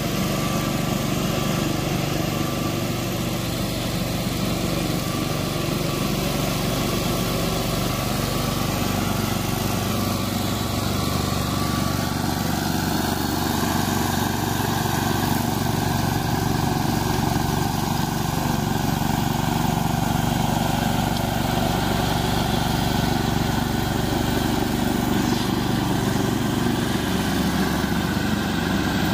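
Walk-behind lawn mower's small engine running steadily as it cuts through tall, overgrown grass, its note shifting slightly about twelve seconds in.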